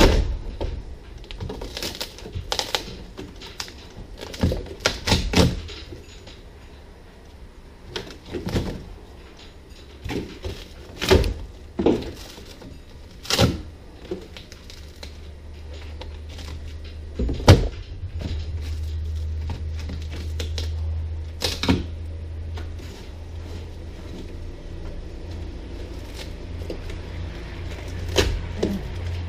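Irregular knocks and scrapes of a hand tool chipping and prying old foam and debris out of a fiberglass boat hull's floor. A steady low hum comes in about halfway through.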